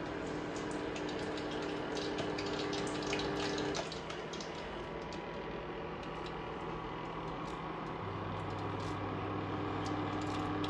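Electric (induction-type) cooktop running under a pan of heating oil: a steady fan-like hiss with a hum. The hum drops out about four seconds in and a lower hum comes in near eight seconds. Fine ticking runs through it.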